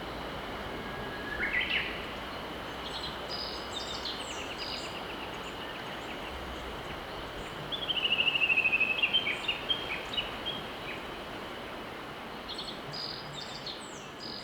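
Mountain river flowing steadily, with birds singing over it: a rising note about a second and a half in, scattered high chirps, and a loud, rapid, falling trill about eight seconds in, then more chirps near the end.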